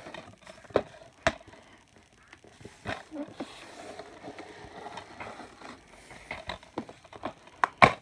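Handling noise from a plastic DVD case and other objects being moved close to the microphone: scattered sharp clicks and knocks with soft rustling between them, and the loudest knock near the end.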